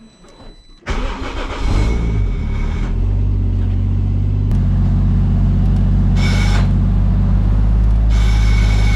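Toyota Chaser JZX100's engine starting about a second in, then running steadily. A hiss with a high whistle comes in briefly twice.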